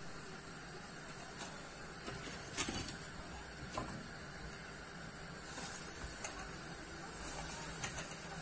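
Hot oil frying battered chicken strips in a deep pot with a steady sizzling hiss. A few light metallic clinks from the wire frying basket are heard, the loudest about two and a half seconds in.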